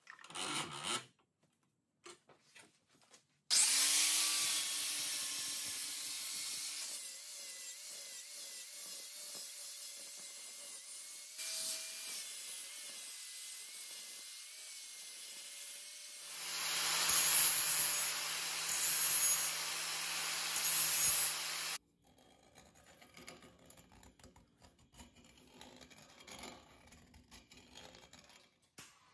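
Makita angle grinder spinning up a few seconds in and grinding a steel part, running at a steady whine; past the middle it grinds harder and louder for several seconds, then cuts off sharply. Faint small-tool sounds follow.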